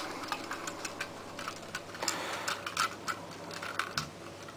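Light, scattered clicks and taps of hard plastic as a Transformers Animated Wreck-Gar action figure is handled, its movable back parts being turned and shifted.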